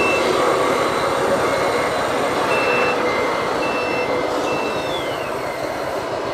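RC model trucks' sound modules: a steady vehicle running noise with short electronic reversing beeps sounding on and off, about one a second at two alternating pitches.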